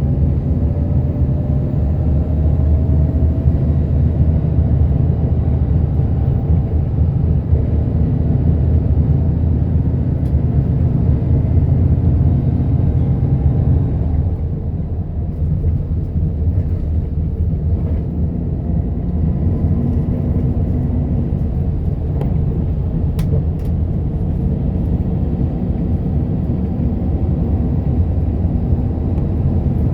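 Express bus travelling on the road: a steady low rumble of engine and road noise, easing slightly about halfway through.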